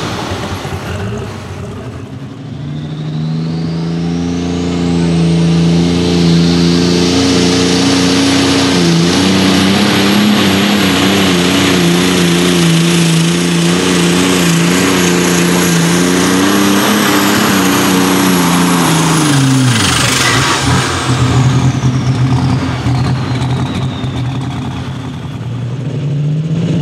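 Light super stock pulling tractor's turbocharged diesel engine pulling at full throttle under load, with a high turbo whine that climbs and then holds while the engine note wavers. About twenty seconds in the throttle comes off: the engine note drops suddenly and the turbo whine winds down over several seconds.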